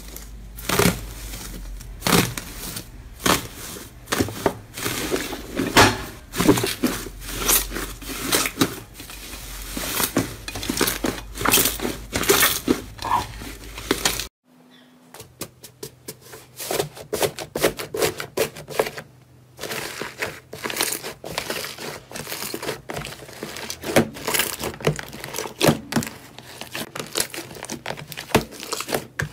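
Aluminium foil crinkling and tearing as hands peel it off a lump of slime, in dense irregular crackles. About halfway through, this gives way to slime being squeezed and kneaded by hand, with many small pops and clicks.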